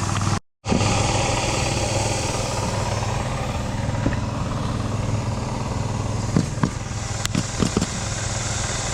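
Small gas engine running steadily at a constant speed, cutting out for a moment about half a second in, with a few faint knocks near the end.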